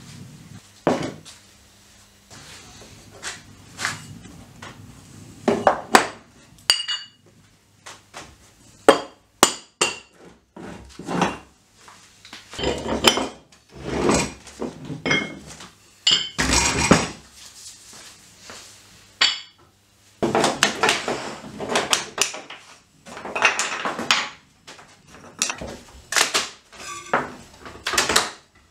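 Barbell weight plates being lifted, slid and set down on a wooden workbench, giving irregular knocks and clanks as they hit each other and the wood, a few with a short metallic ring. Near the end the knocks are from loose wooden strips being moved about on the bench.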